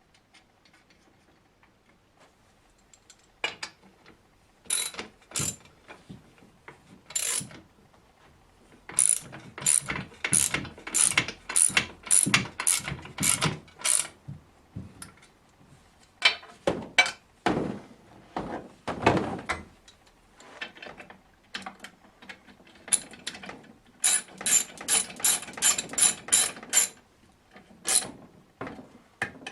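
Ratchet wrench clicking as bolts are tightened, in runs of sharp back-and-forth clicks at about two a second with short pauses between, starting a few seconds in.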